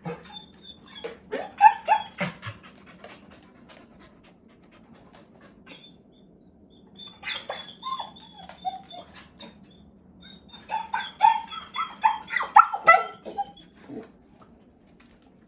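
Dog hacking, gagging and clearing her throat in three bouts of rapid, rasping coughs: a recurring cough fit whose cause is unknown, possibly something inhaled and stuck in her throat or snout.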